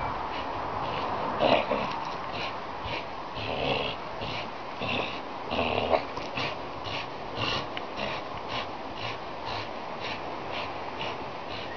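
Pit bull snorting and breathing hard through her nose in quick, even puffs, about two a second, while clamped onto a hanging fishing buoy. A few louder snorts stand out in the first half.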